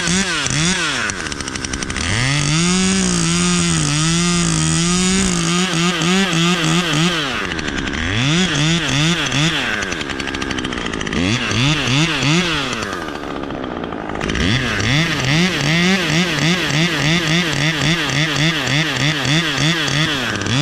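Husqvarna 540iXP battery chainsaw cutting through wood, its pitch repeatedly rising and sagging as the chain bites. It eases off briefly a few times before cutting again.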